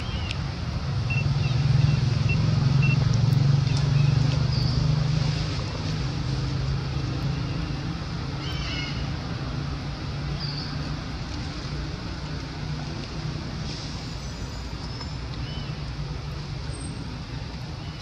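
A low, steady engine hum from a motor vehicle, louder from about one second in until about five seconds in, then continuing more softly. Short high chirps come through here and there.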